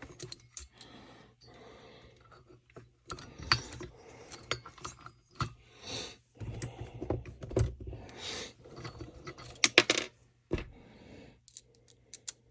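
Small metal and plastic parts and hand tools being handled at a workbench: irregular clicks, clinks and short rustles, with a quick cluster of sharp clicks about ten seconds in.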